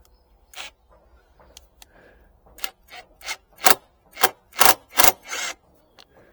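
A series of short scraping, rasping strokes on wood, about eight of them, coming faster and louder in the second half.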